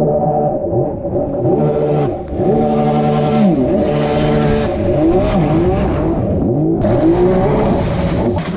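Stand-up jet ski engine revving up and down repeatedly as the craft carves through the water, its pitch rising and falling several times. A loud hissing rush joins in about seven seconds in.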